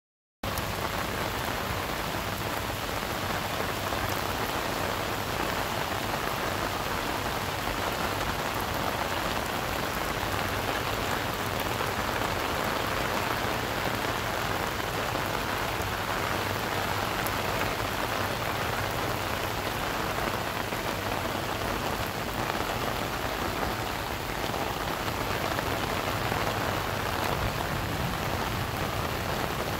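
Pouring rain, a steady dense hiss of drops splashing on the ground, starting suddenly about half a second in.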